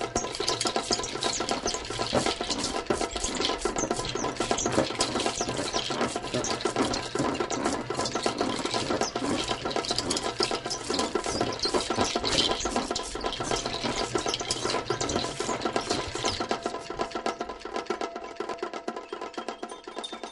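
Music: a dense, fast patter of percussive clicks and taps over held steady tones, easing down in level over the last few seconds.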